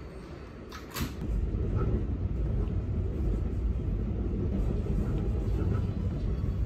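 Subway train heard from inside the car: a short sharp hiss or clunk about a second in as the doors shut, then a steady low rumble as the train pulls out and runs.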